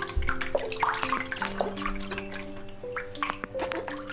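Water splashing and dripping in a shallow sink as a kitten is bathed, over background music of held, sustained notes.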